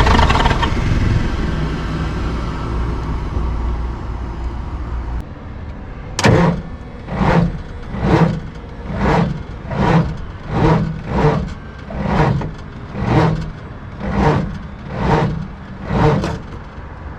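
Cummins 855 diesel engine running, then fading away over the first five seconds. After a sudden change, a regular series of about eleven rushing pulses follows, roughly one a second; their source is not shown.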